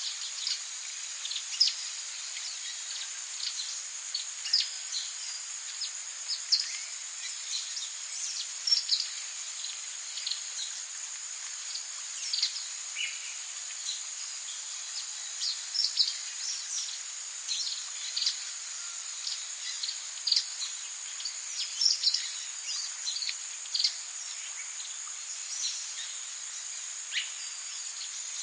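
Rainforest ambience: a steady, high-pitched insect drone over the soft hiss of rain, with many short bird chirps scattered irregularly throughout.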